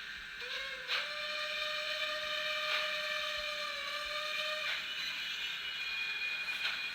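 Fleischmann N gauge class 193 Vectron electric locomotive running under DCC sound: the decoder plays a steady electric-traction whine that glides up about half a second in, holds, and stops just before five seconds, over sharp clicks of the wheels and mechanism on the track.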